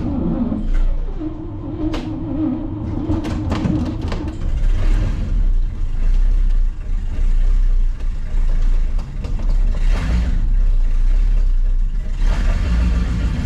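International Harvester SV304 V8 engine of a 1961 B-163 bus starting up and running, its speed rising and falling. It is running on fuel it pulls from the newly rebuilt tank after the carburetor was primed.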